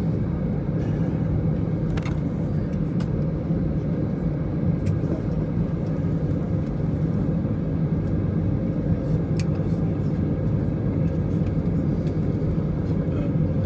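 Steady low rumble of an Airbus A319's cabin after landing: idling engines and the air system, heard from inside the cabin, with a few faint clicks.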